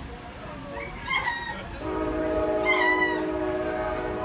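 Lemurs giving short, high, pitched calls, twice, about a second and a half apart. From about two seconds in, a steady horn-like chord of several held tones sounds underneath them.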